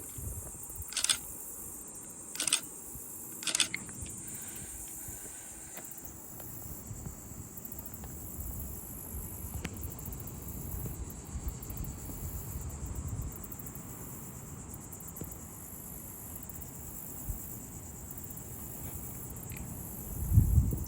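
Steady high-pitched chorus of insects in the marsh, running without a break. Three short sharp sounds come in the first four seconds, and a low thump near the end.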